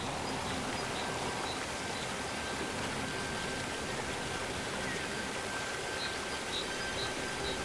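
Forest ambience: a steady rushing hiss. Over it come short, faint, high chirps, more of them near the end, and a thin high tone held steady from about a second in.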